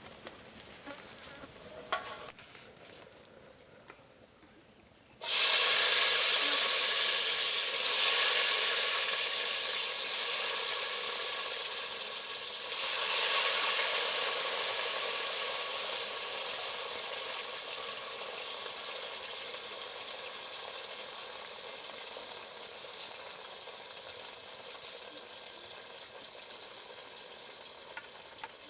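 Potato slices frying in hot oil: after a few faint clinks, loud sizzling starts suddenly about five seconds in, swells twice more, and slowly dies down as the oil settles.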